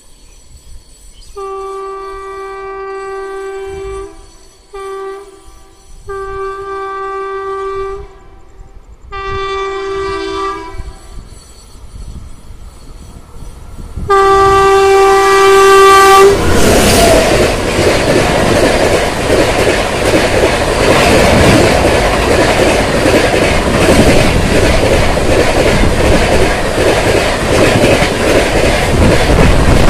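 WAP7 electric locomotive's horn sounding five times as the express approaches, one blast short and the last the loudest. From about sixteen seconds in, the train runs through at top speed: loud rushing and wheel clatter of the coaches passing close by.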